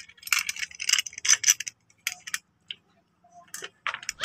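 Short clicks and light clatter of hard plastic and metal parts being handled and fitted together: the parts of a chainsaw attachment going onto an angle grinder. The clicks come in a quick run through the first second and a half, a few more follow, then a short pause and another run near the end.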